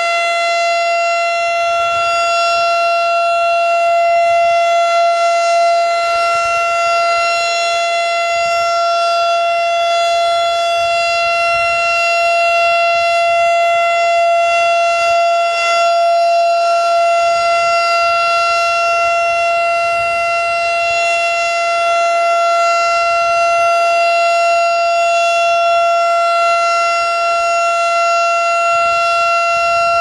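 Federal Signal STH-10 electromechanical tornado siren sounding loud and clear, holding one steady pitch with no rise or fall.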